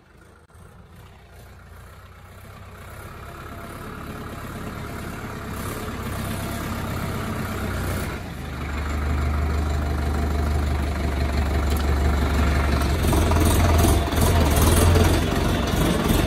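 65-horsepower Indo Farm 3065 DI tractor's diesel engine running as the tractor works soil, starting faint and growing steadily louder, with a strong low drone in the second half.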